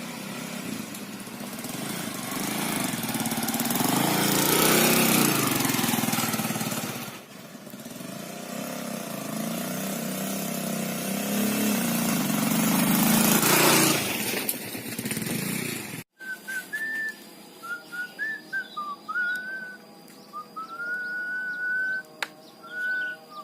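A motorbike engine running, swelling louder twice as it passes. After a sudden cut about sixteen seconds in, it is replaced by a run of short, high whistling notes.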